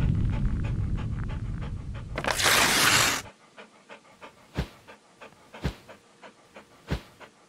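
Intro sound effects: a low rumble dying away, then a whoosh about two and a half seconds in. After that, a dog panting in quick, quiet, even breaths, about three a second, with a few louder thumps among them.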